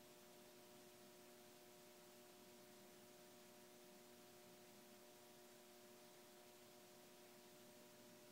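Near silence: faint hiss with a steady, faint electrical hum.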